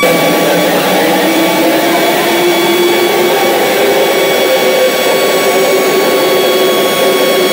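Loud, harsh static-like noise with faint steady tones running through it, starting abruptly: the error noise of a mock TV-box fatal-error screen.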